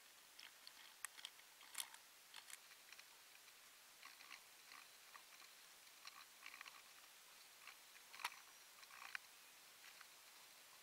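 Near silence, with faint, scattered small clicks and light knocks; one is a little louder late on.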